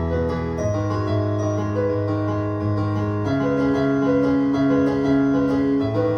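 Piano-style keyboard playing held chords in an instrumental passage of a song, with no voice; the chord changes about half a second in, again after about three seconds, and near the end.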